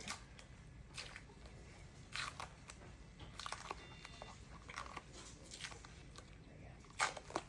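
Medical tape and dressing being handled and peeled, with a series of short crackles and crinkles; the loudest comes about seven seconds in.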